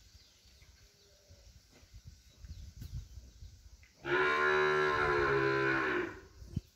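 A heifer in a hard, distressed labour moos once, a single long call of about two seconds that starts about four seconds in.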